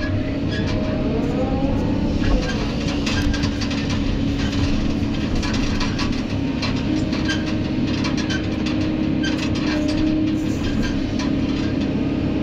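Kobelco SK200 hydraulic excavator heard from inside its cab: the diesel engine and hydraulics run steadily, with a hum that steps up in pitch about seven seconds in. Irregular clanks and knocks come in as the bucket swings back and digs into rocky soil.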